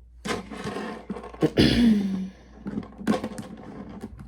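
Handling noises: irregular rustling with a few sharp knocks, the loudest about a second and a half in.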